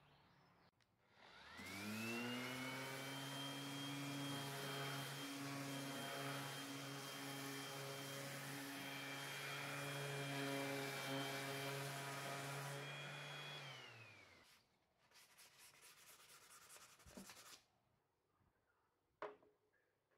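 Electric random orbital sander starting up, running steadily against the wooden cabinet frame for about twelve seconds, then winding down with a falling whine. It is followed by a couple of seconds of quick scratchy rubbing strokes and a single sharp knock near the end.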